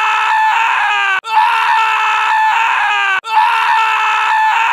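Looped scream sound effect: a high, held scream that falls in pitch at its end. It repeats about every two seconds with abrupt cuts between repeats.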